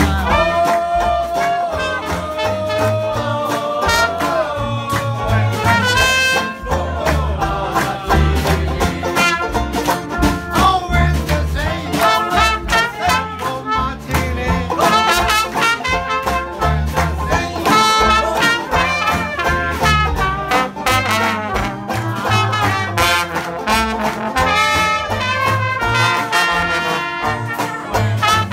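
Live traditional jazz band playing a swing tune: trombone and trumpet over a strummed banjo and drums keeping a steady beat.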